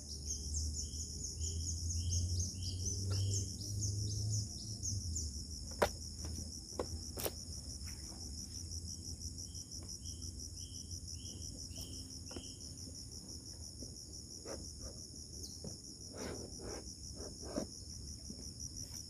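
Insects chirping in a fast, steady, high trill. Two runs of about six short falling chirps, and a few sharp clicks in the middle.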